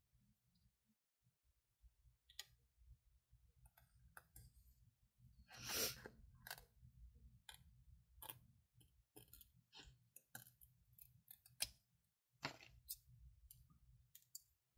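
Faint, scattered clicks and short rustles of paper crafting pieces being handled, with a louder rustle about six seconds in.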